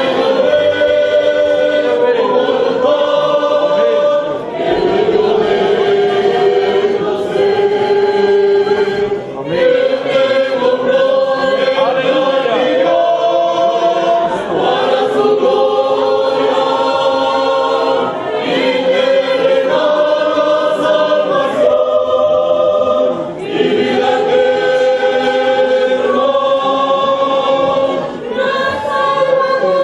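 A group of young people singing a church hymn together as a choir, in sustained phrases with short pauses for breath every few seconds.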